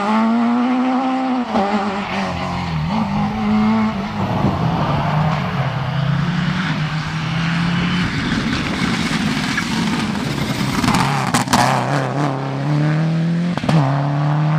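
Rally car engines at full throttle: one car accelerating away with rising revs and gear changes, then a Subaru Impreza WRX STI rally car approaching and passing. There are a few sharp cracks about eleven seconds in.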